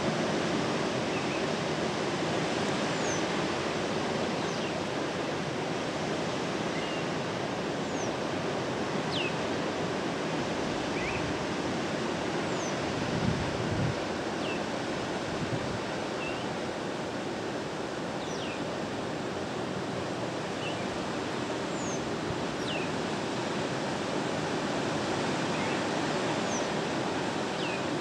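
Caribbean surf breaking on rocks and shore below, a steady wash of noise, with short high bird chirps every second or two. A short low thump about 13 seconds in.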